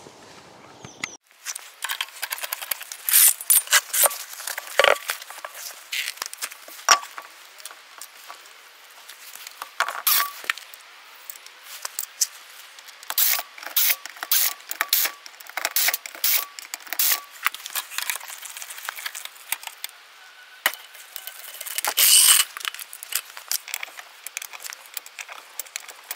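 Irregular metallic clicks and clinks of tool work as a car is raised on a hydraulic floor jack and a wrench is set on the front wheel's bolts, with a denser run of clatter near the end.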